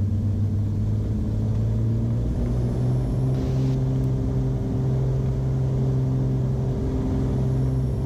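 Beechcraft Baron B55's twin piston engines and propellers going to takeoff power for the takeoff roll, heard inside the cockpit. The engine note pulses at first, rises in pitch about two seconds in, and then holds steady at full power.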